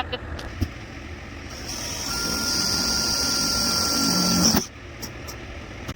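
Electric drill running for about three seconds as it bores a hole in the hood's sheet metal, with a steady whine that grows a little louder and then cuts off suddenly.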